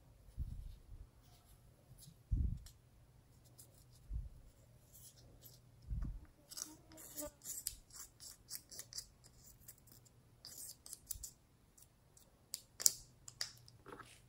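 Small plastic spatula scraping and breaking up a pan of pressed eyeshadow in its compact: a run of short, dry, scratchy scrapes and clicks, densest in the second half, with a few dull low thumps in the first half.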